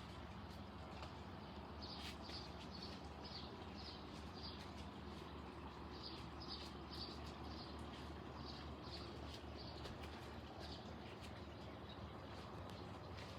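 Faint bird chirping: runs of short high chirps, about three a second, over a low steady hum.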